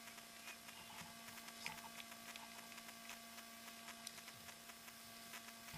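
Near silence: a faint steady electrical hum over an even hiss, with a few faint ticks.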